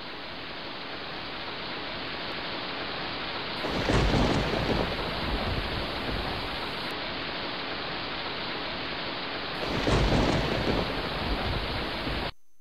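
Wind blowing across the camera's microphone: a steady rush with two heavier, rumbling gusts about four and ten seconds in, cutting off abruptly just before the end.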